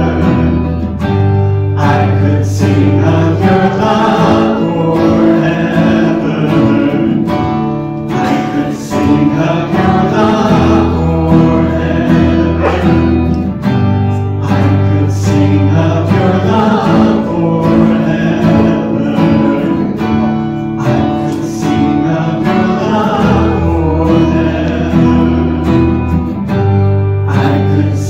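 Live church worship music: a band with acoustic guitar and bass playing a worship song while voices sing together. Bass notes hold for a few seconds at a time under a steady beat.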